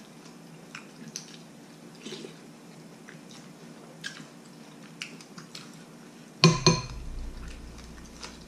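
Metal spoons clinking and scraping against ceramic bowls and plates while eating, light taps scattered about a second apart. About six and a half seconds in there is a much louder double knock, followed by a low hum.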